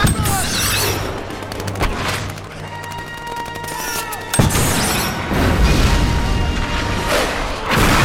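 Shoulder-fired missiles launching at the alien tripod: a sharp blast right at the start, another about two seconds in, then a sudden loud launch a little after four seconds that runs into a dense rumble of firing and blasts, with film score music underneath.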